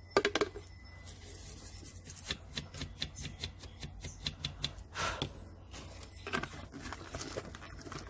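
Small brush wet with isopropyl alcohol scrubbing flux off the solder joints of a PS4 controller circuit board: scattered light ticks and short scratchy rubs of bristles against the board.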